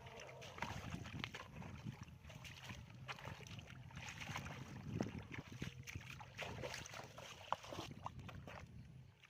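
Shallow water splashing and sloshing, with irregular small knocks and clicks.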